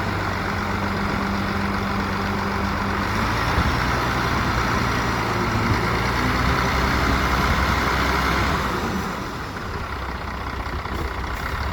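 Heavy diesel engine of construction machinery running steadily, with a noisy layer over it that eases off about nine seconds in.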